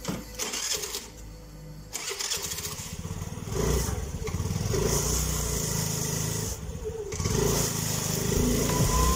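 Honda Activa 5G scooter's single-cylinder four-stroke engine being kick-started and catching about two seconds in, then running and revved up, with a short dip in revs near the end.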